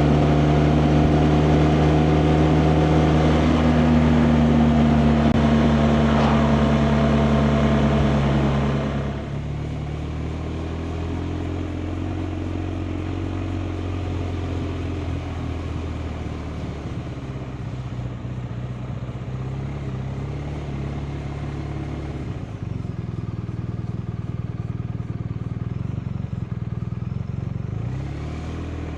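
BMW R 1250 RT's boxer twin running on the road, with heavy wind and road noise at speed. About a third of the way in the wind noise drops away as the bike slows, and the engine carries on more quietly and steadily, picking up revs again near the end.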